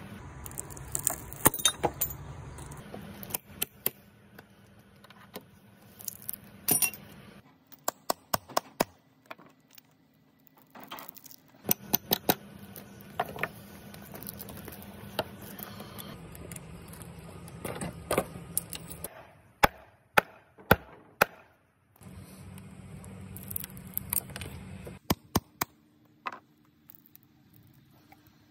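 Sharp metallic taps of a hammer on a titanium cat's paw nail puller, in short runs of several strikes with pauses between, driving its claw into a wooden plank to get under nail heads, with the nails then pried out.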